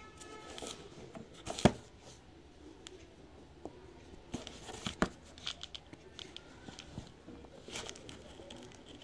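A cardboard parcel box being handled and its packing tape slit with a blade: scattered taps, scratches and knocks on the cardboard. The loudest is a sharp knock about one and a half seconds in, with another about five seconds in.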